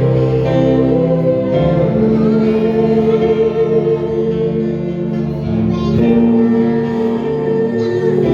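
Live church worship music with singing: slow, long-held chords that change about two seconds in and again about six seconds in.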